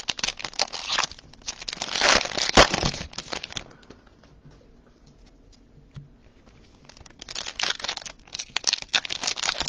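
Foil trading-card pack wrappers crinkling and tearing as packs are ripped open and the cards handled. It goes quiet for a few seconds in the middle, then the crinkling starts again.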